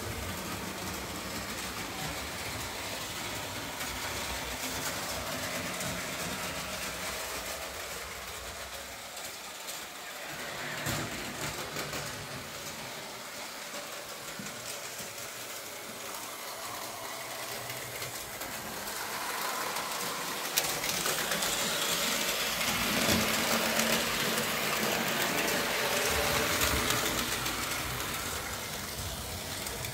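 Märklin model steam locomotive with two freight wagons running on the layout's track: the small electric motor whirring and the wheels rattling on the rails. It grows louder about two-thirds of the way through, with one sharp click.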